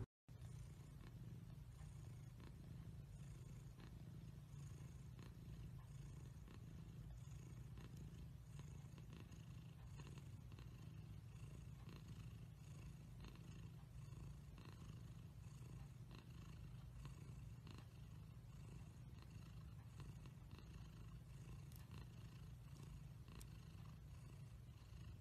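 A cat purring, faint and steady.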